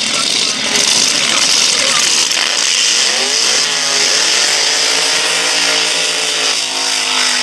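Front-engine dragster's engine revving up about two and a half seconds in, then held at high revs through a burnout, its rear tyres spinning and smoking. Before that, loud engine noise from the drag strip.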